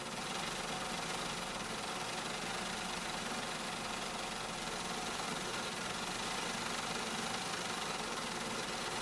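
Steady mechanical running noise from machinery, engine-like, with no pauses or distinct knocks.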